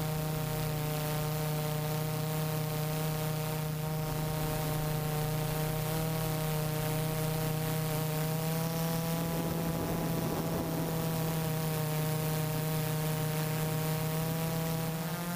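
Y6 hexacopter drone's motors and propellers humming steadily in flight, heard from the camera on board, the pitch drifting slightly up and down. A rougher rush of noise comes in briefly about ten seconds in.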